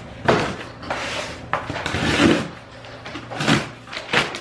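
Corrugated cardboard shipping box being opened: the packing tape is cut and the flaps are pulled back. About half a dozen sudden cardboard scrapes and rustles.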